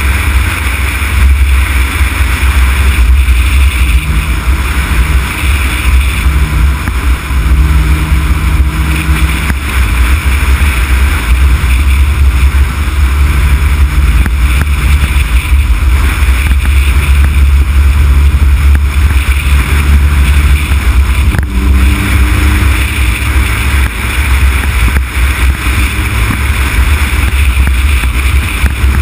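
Heavy wind rumble on the microphone of a camera mounted on a moving car, over steady road and engine noise from a Honda Civic Type R (EK9) cruising; a faint low hum comes and goes a few times.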